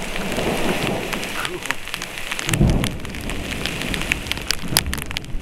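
Heavy rain falling in a thunderstorm, with many sharp drop hits close to the microphone, and a low rumble of thunder swelling about two and a half seconds in.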